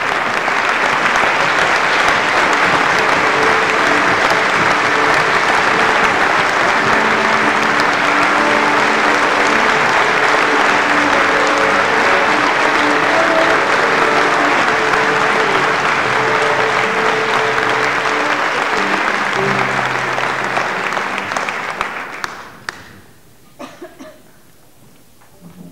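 Audience applauding steadily, with a few sustained low instrumental notes held beneath it. The clapping dies away about three-quarters of the way through, leaving only a few scattered clicks and knocks.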